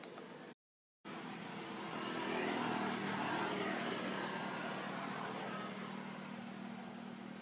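A motor vehicle passing: a rush of engine and road noise that swells to its loudest about two to three seconds in and slowly fades, over a steady low hum. The sound drops out completely for half a second just after the start.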